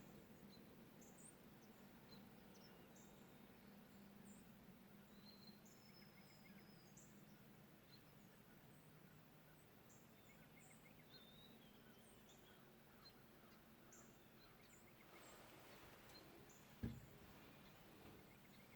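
Faint birds chirping and calling now and then over a low steady hum, with a single sharp knock near the end.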